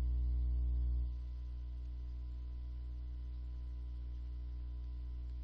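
Steady electrical mains hum with a stack of buzzing overtones, dropping a little in level about a second in.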